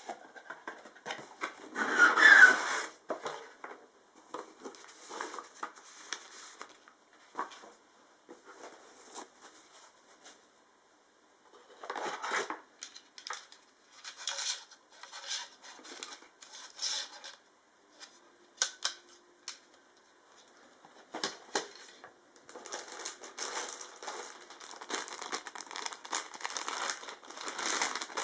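A cardboard box being opened and its contents unpacked by hand: cardboard flaps scraping, loudest about two seconds in, then scattered knocks and rustles of handling, and in the last few seconds steady crinkling of clear plastic bags.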